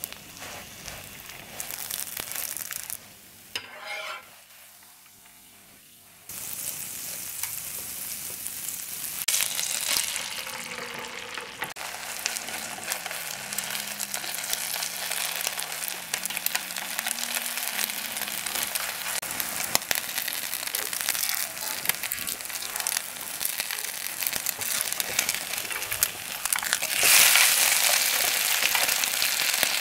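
Food frying in butter in a nonstick pan, first bread and then an egg-and-shredded-vegetable omelette: a steady sizzle with the occasional scrape of a spatula and chopsticks. It drops away briefly about three seconds in, then comes back and grows louder near the end.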